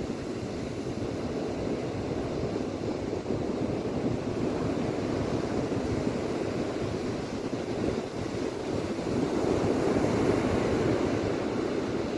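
Ocean surf breaking and washing up onto a beach, a steady rush that swells louder near the end.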